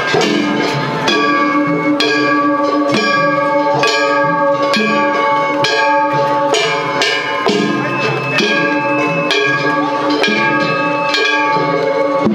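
Japanese festival hayashi from the Kumagaya Uchiwa Matsuri floats: hand-held gongs (kane) clanging and drums struck in a steady, fast beat, over sustained pitched tones. This is the float-against-float drumming of a tatakiai.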